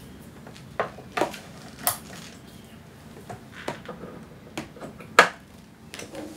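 XLR microphone cable being handled and its plugs pushed into the jacks on the back of a subwoofer and a small speaker: a string of short sharp clicks and knocks, the loudest about five seconds in.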